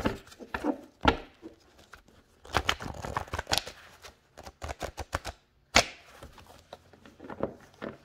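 Tarot cards being handled and shuffled: irregular runs of quick clicks and rustles, with one sharp snap about six seconds in.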